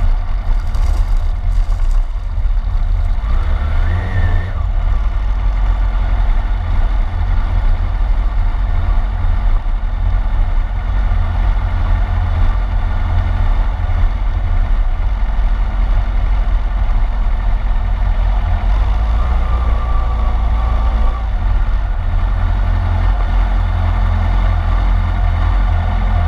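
Yamaha sport motorcycle's engine running as the bike is ridden, heard from a camera mounted on its fairing, with a heavy wind rumble on the microphone. The engine note rises and falls briefly a few seconds in.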